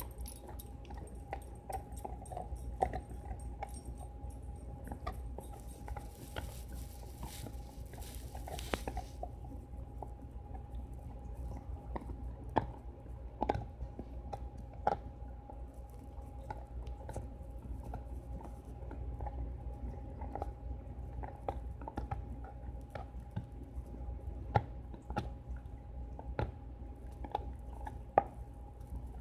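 A dog chewing and gnawing on a hard Indestructibone chew bone, her teeth making irregular sharp clicks and scrapes against it, over a faint steady hum.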